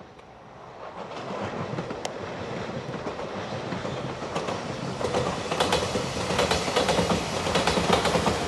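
A Shiokaze limited express electric train approaches and passes. Its running noise grows steadily louder, and from about halfway through its wheels clack rhythmically over the rail joints.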